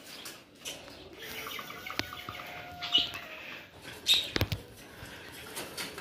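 Wire bird cages being handled, with metal clicks and clatter, while small cage birds flutter their wings inside. Single sharp clicks come about two and three seconds in, and the loudest burst of clatter comes a little after four seconds.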